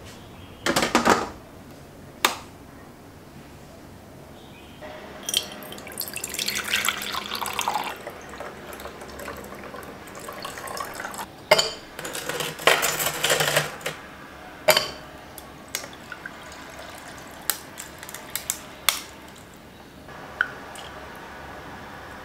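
Kitchen handling sounds: a couple of knocks as a pot is set into a slow cooker, then ice cubes worked out of a plastic tray and dropped clinking into a glass beaker in several sharp clicks. Near the end, a steady pour of milk over the ice.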